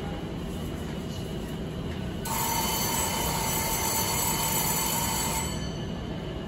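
Subway door-closing warning buzzer: a steady high tone that starts suddenly about two seconds in and cuts off about three seconds later. Under it runs the steady low hum of the train standing at the platform.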